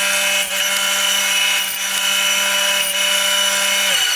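WorkZone benchtop bandsaw running free with no wood in the blade: a steady motor hum with a whine above it. Near the end the hum cuts out and a short falling whine follows as the saw runs down.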